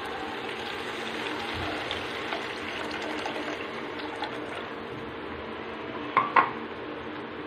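Ground masala sizzling in hot oil in a cooking pan while tamarind water is poured in and splashes into it. Two sharp knocks, a fraction of a second apart, about six seconds in are the loudest sounds.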